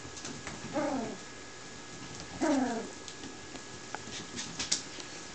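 Puppy giving two short whining yelps, each falling in pitch, about a second and a half apart, with a few faint clicks later on.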